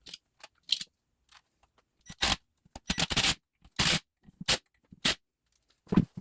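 Short scrapes and knocks of an air-over-hydraulic treadle pump's parts being handled and fitted together during reassembly: a string of separate strokes with short pauses between them.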